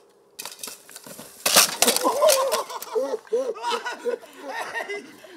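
A rider and mini bike crashing down onto the dirt about a second and a half in, a sharp loud impact. Laughter and shouting from the group follow.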